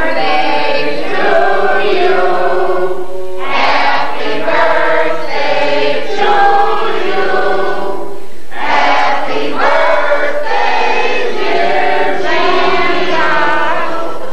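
A group of voices singing together in three long phrases, with short breaks between them.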